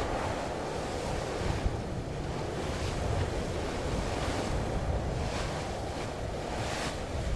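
Wind and waves at sea: a steady rush of wind with a low rumble on the microphone, and water washing in brief surges every second or two.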